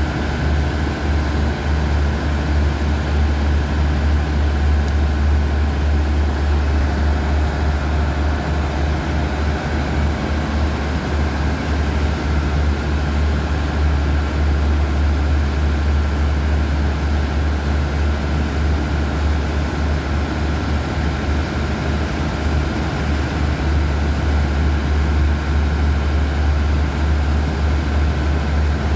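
A standing diesel passenger train idling: a steady, loud low hum from its engines, with faint steady higher tones on top.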